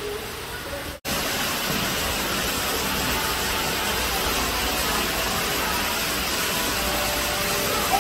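A steady rushing noise, briefly cut off about a second in and coming back louder.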